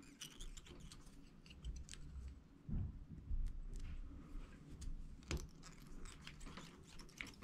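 Faint ticks and rustles of fly-tying thread being wrapped from a bobbin to tie a saddle hackle feather onto a jig hook, with two soft knocks about a third and two thirds of the way through.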